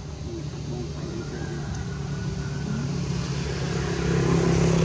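A motor engine running steadily, growing louder as it draws nearer.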